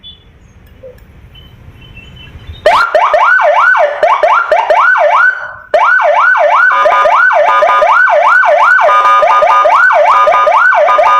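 Senken custom police-escort electronic siren sounding a fast up-and-down wail, about two and a half sweeps a second. It starts about two and a half seconds in, cuts out briefly near the middle, and restarts. Soon after, a second steadier tone comes and goes over the sweep, which is the siren's double-tone mode.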